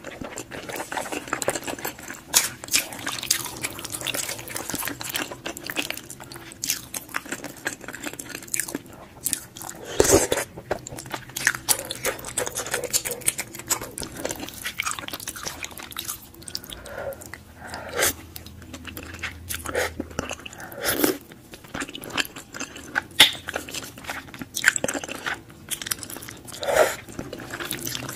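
Close-miked eating sounds of wide glass noodles in spicy sauce: steady wet chewing and biting with many short mouth clicks and smacks, and a few louder smacks spread through.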